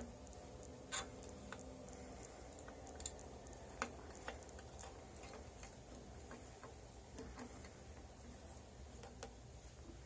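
Faint, scattered clicks and taps of hand tools working on a BMX bike's handlebar stem, a few seconds apart at irregular times, over a low steady hum.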